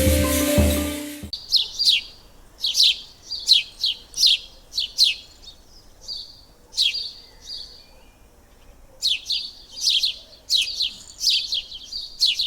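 Music cuts off suddenly about a second in, then birds chirping: quick, high, downward-sweeping chirps in clusters, with short gaps between them.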